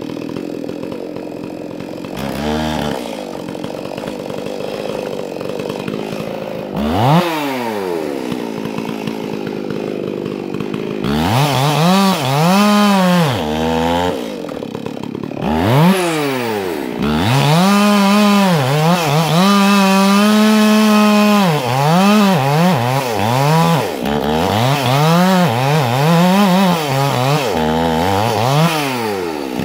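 Two-stroke chainsaw running, at first fairly steady, then from about eleven seconds in repeatedly revving up and dropping back, held at high revs for a few seconds at a time while cutting wood.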